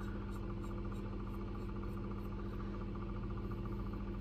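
A steady electrical hum with a fine buzzing edge, unchanging throughout.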